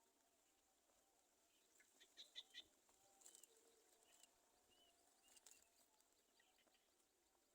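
Faint high bird chirps over near-silent background hiss: a quick cluster of short chirps about two seconds in, then a few small arched notes spaced about a second apart.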